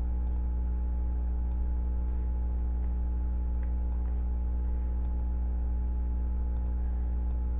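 Steady low electrical hum with a ladder of overtones, with a few faint, scattered clicks of a computer mouse.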